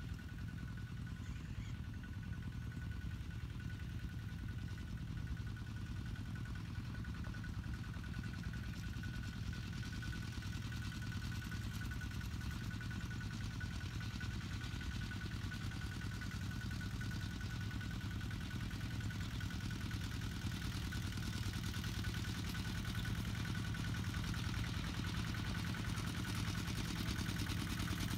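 Kubota tractor engine running steadily as it works, with a thin steady whine above the engine note. It grows gradually louder over the span.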